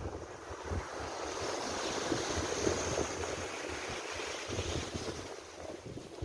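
Sea waves breaking and washing up a sandy beach, the surge building over the first few seconds and easing off near the end.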